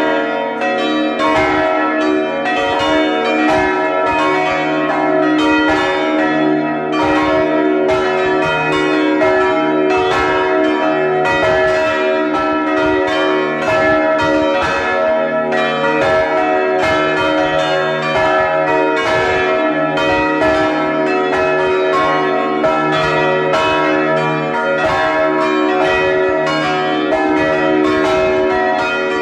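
Plenum of the church's five swinging bronze bells (volée rétrograde), heard close up inside the belfry: strokes from all the bells overlap continuously, several a second, over a long ringing hum, the deepest bell a Mi3 (E).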